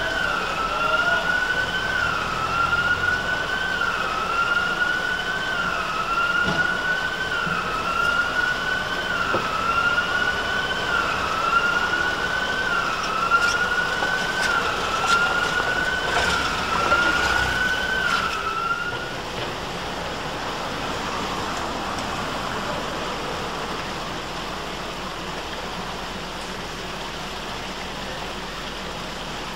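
Electronic siren sounding a repeated rising sweep that climbs in pitch and drops back about once a second; it stops about two thirds of the way through, leaving steady street noise.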